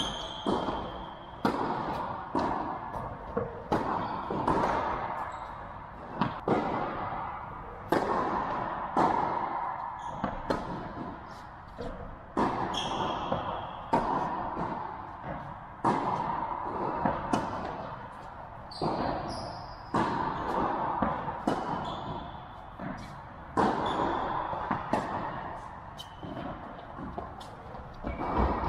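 Tennis rally: a ball struck back and forth by rackets and bouncing on the hard court, a sharp hit about every one to one and a half seconds, each echoing in a large indoor hall.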